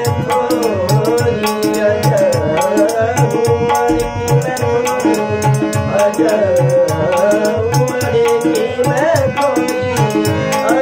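Male voice singing a classical Holi song over harmonium chords, with tabla keeping a steady rhythm of regular strokes.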